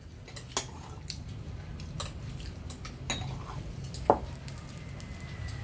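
Metal ladle scooping curry and clinking against ceramic bowls, with scattered clinks of utensils on dishes; the sharpest clink comes about four seconds in.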